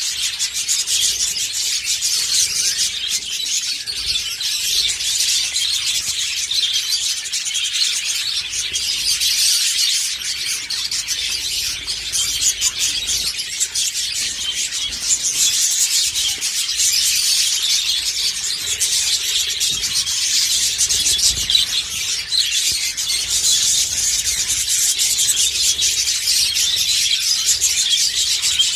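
Budgerigars chattering and warbling without pause, a dense, high, scratchy twittering of many birds.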